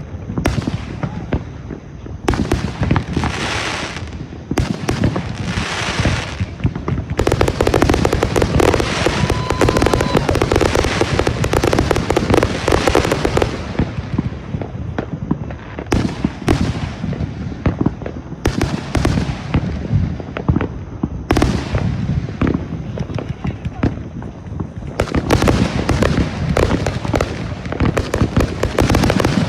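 Consumer fireworks going off in quick succession, a steady run of booming reports and crackle, building to dense barrages around a quarter of the way in and again near the end.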